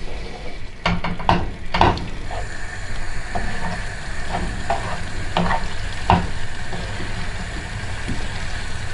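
Wooden spoon stirring chunks of fried aubergine, olives and celery in tomato sauce in a frying pan, with soft knocks and scrapes against the pan. A steady sizzle sets in about two seconds in.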